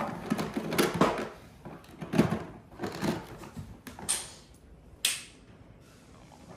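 Plastic toys knocking and rattling in a toy box as a monkey rummages through it, in irregular bursts that stop about five seconds in.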